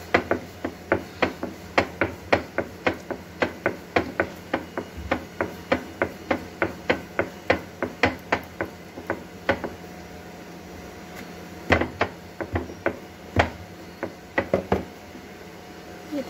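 Rolling pin clacking in a steady rhythm, about three knocks a second, as it is rolled back and forth over besan roti dough on a round board. The rhythm stops about ten seconds in, followed by a few louder, scattered knocks.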